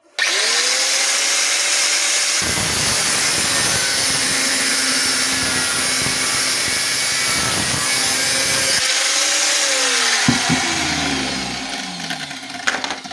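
Angle grinder spinning up and cutting a small piece of steel for a hinge pin. The motor starts abruptly and rises to a steady whine, the cut grinds for about six seconds, then the disc winds down with a falling whine.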